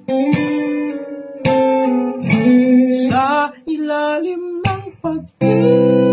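Acoustic guitar strumming with a voice singing long held notes over it, the melody bending and wavering between phrases.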